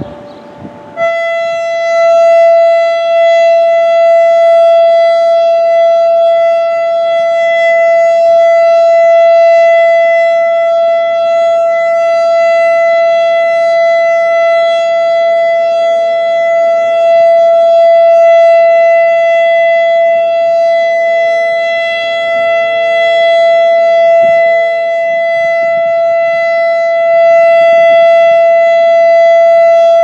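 ASC Quadren Q-3200 electronic warning siren sounding a steady alert tone. It comes in at full strength about a second in and holds one unchanging pitch throughout.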